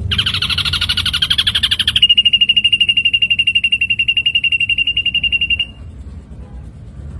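Ashy drongo song: a rapid buzzy trill for about two seconds, then one long, even, high pulsed note that cuts off suddenly, leaving a low background hum.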